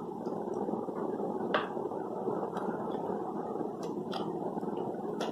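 A few sharp clicks and taps of plastic markers and pen packets being handled on a table, the loudest about one and a half seconds in, over a steady low background hum.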